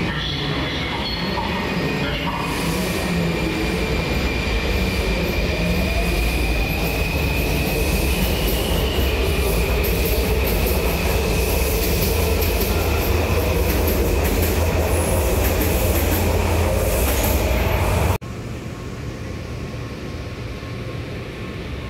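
Washington Metro subway train running in the station: loud rumble of the cars with a steady high wheel squeal and a whine that slowly rises in pitch. About 18 seconds in the sound cuts off abruptly to a quieter steady noise.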